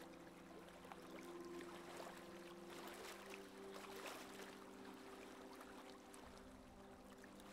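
Faint rush and splash of sea water along a sailboat's hull as it sails, with irregular little spatters. Soft, low held tones sit underneath.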